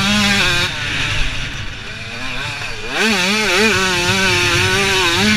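Two-stroke supermini motocross bike's engine at race speed: it is revving hard, eases off about a second in, then picks up sharply around three seconds in and runs on at high revs with a wavering pitch.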